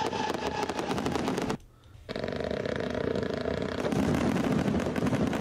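Consumer firework cakes firing whistle-to-thunder shots: steady whistles over rapid cracks and bangs. There is a short break about a second and a half in, then a second whistle with dense bangs.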